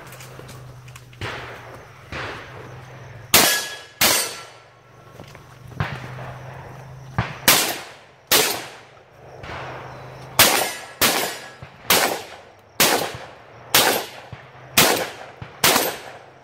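Shotgun fired in a rapid string of about a dozen shots, starting about three seconds in and coming roughly once a second toward the end, with steel targets ringing as they are hit.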